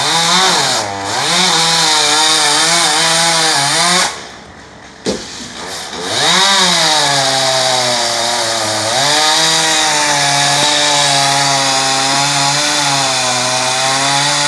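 Chainsaw running and cutting wood, its engine pitch wavering as the chain loads and frees. About four seconds in it drops back to a low, quiet idle for a couple of seconds with a single knock, then revs back up and runs steadily under load.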